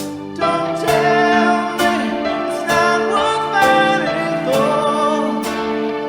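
Live rock band music: a sung vocal line, held notes with vibrato, over band accompaniment with a steady beat.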